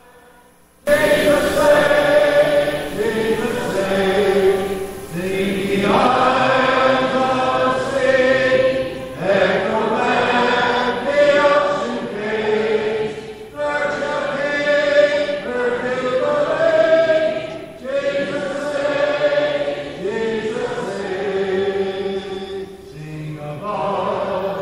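Church of Christ congregation singing a hymn a cappella, the invitation song at the end of the sermon. Many voices hold long notes phrase by phrase, starting abruptly about a second in.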